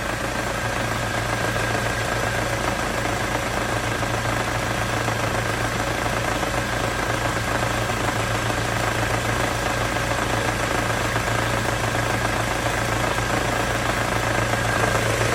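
Ford Mondeo Mk4's 2.3-litre inline-four petrol engine idling steadily with a knock that the owner hears most between the first and second cylinders.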